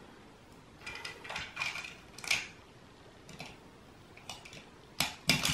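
Light clicks and clatter of plastic Lego Duplo toy pieces being handled and pressed together, in scattered short knocks with the loudest few near the end.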